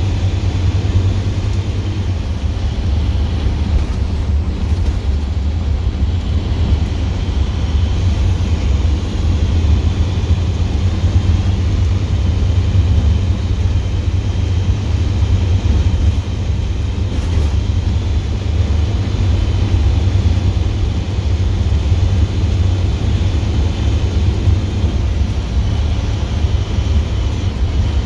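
Straight-piped International DT466E inline-six turbo diesel running steadily under way: a loud, even low exhaust rumble, heard from inside the cab.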